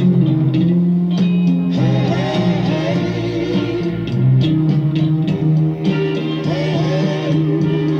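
Recorded soul music with a singer's voice over the instruments.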